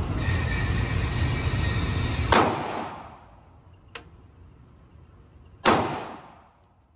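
Two pistol shots fired on an indoor range, about three seconds apart, each a sharp crack followed by a short echoing decay, with a faint click between them. A steady rush of background noise cuts off at the first shot.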